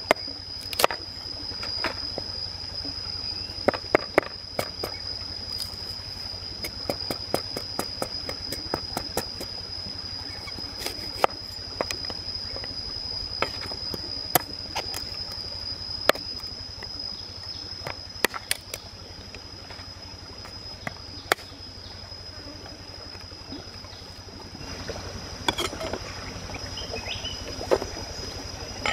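Large cleaver-style knife peeling and chopping sugarcane on a wooden chopping board: irregular sharp knocks and cuts, over a steady high-pitched whine.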